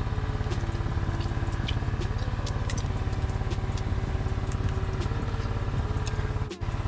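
A small engine running steadily with a fast, even throb, with scattered sharp clicks over it. The sound drops out for a moment near the end.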